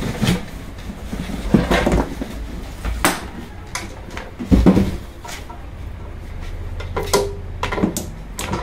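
Cardboard box and packing rustling and scraping as a heavy chop saw is lifted out and handled, with irregular knocks and one dull thump about four and a half seconds in, the loudest sound.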